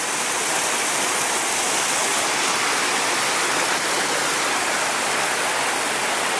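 Stream water rushing in a steady, loud roar, close by.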